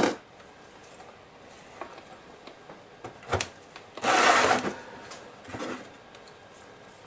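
Handling noises of a plastic scale-model tank and paintbrushes on a cardboard-covered desk: a sharp knock at the start, another knock about three seconds in, then a short scraping rustle a little after four seconds and a few light clicks as brushes are picked up.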